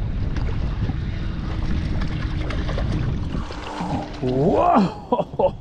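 Wind buffeting the microphone out on open water while a barracuda is reeled up to the boat. About four seconds in a man gives a short rising-and-falling exclamation, and a few sharp clicks follow near the end.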